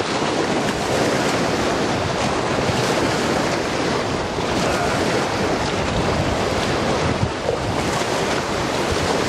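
Wind-driven waves of a reservoir breaking and washing up a concrete bank in a storm, with strong wind buffeting the microphone. A steady, unbroken rush of surf and wind.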